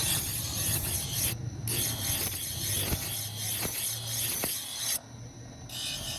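Continuous rasping scrape of a steel knife blade being ground and sharpened, over a low hum. The sound drops out briefly twice.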